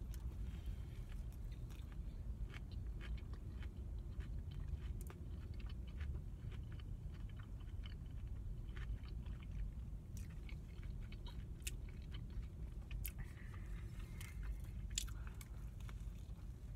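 A person chewing and biting into a rib sandwich on soft sub bread, close to the microphone: many small wet mouth clicks and smacks, with another bite near the end, over a low steady rumble.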